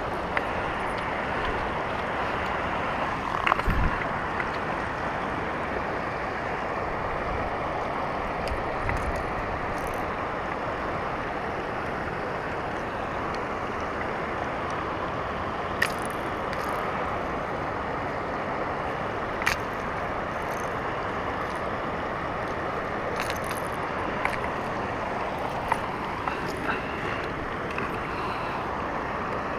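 River water rushing steadily over rock ledges, a constant even hiss. A few sharp clicks and a brief knock about three and a half seconds in stand out above it.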